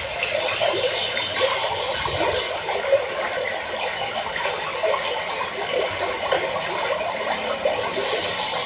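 Water bubbling and trickling steadily, with many small irregular pops.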